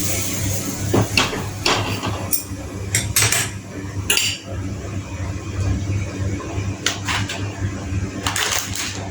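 Metal kitchen utensils and a pan clinking and scraping: a spoon or lid knocking on cookware about eight times at irregular intervals, over a steady low hum.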